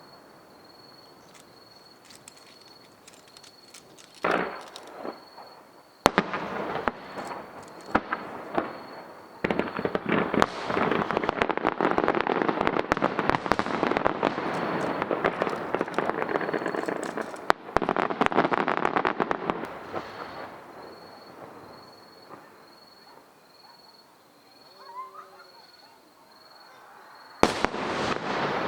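Aerial firework shells bursting: a couple of sharp bangs, then about ten seconds of dense rapid crackling from many shells at once. This fades away before another loud burst near the end.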